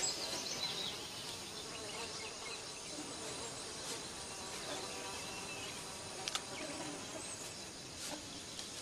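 Forest insects buzzing and chirping in a steady high hiss, with a few high chirps near the start and one sharp click a little after six seconds.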